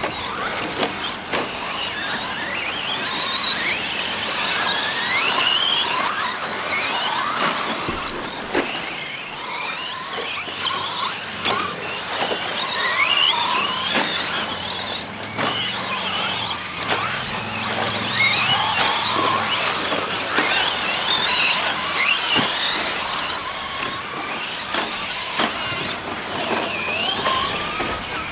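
Several 1/10-scale electric 2WD short course RC trucks racing, their motors whining in overlapping glides that rise and fall in pitch with the throttle. Occasional sharp knocks come through as well.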